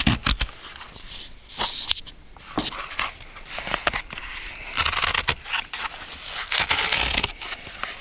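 A Kindle Fire's cardboard box being worked open by hand, a hard-to-open package: irregular scraping, crackling and rustling of the packaging, with sharp clicks and taps among them.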